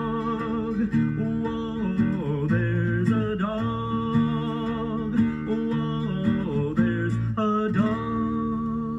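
A children's song playing from a vinyl record on a turntable, in an instrumental passage with guitar after the last sung line.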